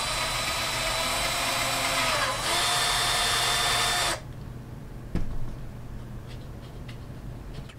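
Cordless drill running for about four seconds, boring out a hole in the black plastic of a spring clamp. Its pitch sags briefly about two seconds in as the bit bites, then holds steady until it stops. A single click and light handling of the clamp follow.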